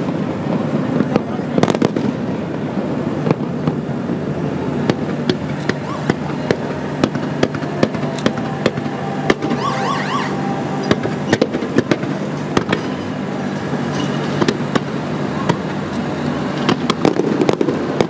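Fireworks display: aerial shells bursting in a steady run of sharp bangs, many to the second at times. A rising whistle comes about halfway through.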